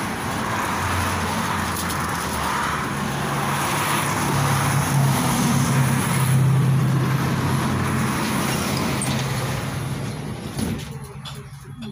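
Steady low hum and whir of a standing KTM-5M3 tram's onboard machinery, heard from inside the car. It swells in the middle and cuts off suddenly near the end.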